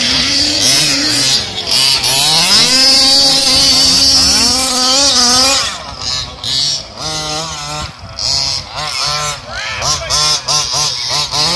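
Small two-stroke petrol engine of a 1/5-scale RC buggy revving hard and holding high revs for a few seconds, then dropping to a low idle about six seconds in and being blipped in short rising bursts of throttle.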